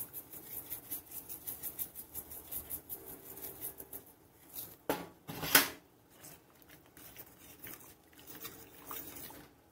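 Seasoning shaker shaken over a pot, a fast light rattle for about four seconds, then one short, louder clatter about five and a half seconds in.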